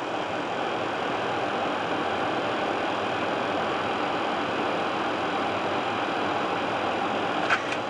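Steady rushing flight-deck noise of an Airbus A330-300 on final approach with gear and flaps down: airflow over the nose and airframe together with the ventilation hiss, swelling slightly at first and then holding even. A single short click sounds shortly before the end.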